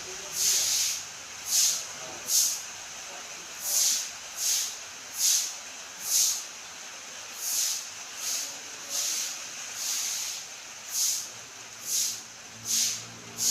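Broom sweeping: repeated short, hissing swishes, about one a second in an uneven rhythm.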